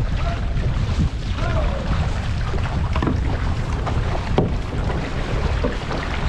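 Wind rumbling on the microphone over the steady wash of water around an outrigger canoe being paddled, with a few short splashes from the paddle strokes.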